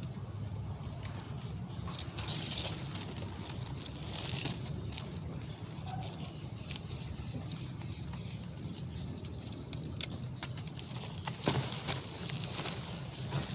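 Rustling and scattered light clicks of galangal stems and leaves being handled, in short bursts a few seconds apart, over a steady low hum.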